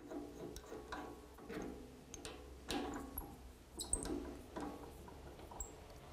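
Small metallic clicks and scrapes, irregular at roughly one or two a second, some with a short ring, from a hand working the chuck of a Rockwell drill press.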